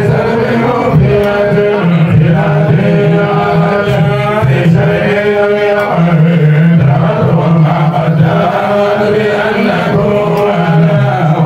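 A man's voice chanting Islamic devotional verses into a microphone, in long drawn-out notes that rise and fall without a pause.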